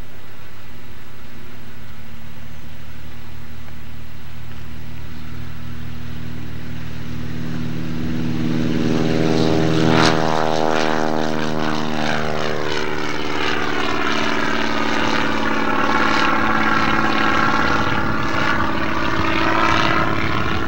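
Single-engine propeller airplane (small high-wing taildragger) running at power and flying low past, louder from about eight seconds in and loudest at about ten seconds. After it passes, the engine and propeller note drops in pitch as it climbs away.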